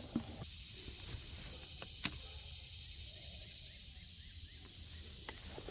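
Quiet creekside ambience: a steady high insect hum, broken by a couple of short sharp clicks, one about two seconds in and one near the end.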